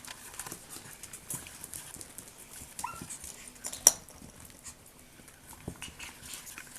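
Chihuahua puppies moving about, their claws tapping and scuffing in small scattered clicks. A short high squeak comes just under three seconds in, and a single sharp click, the loudest sound, just under four seconds in.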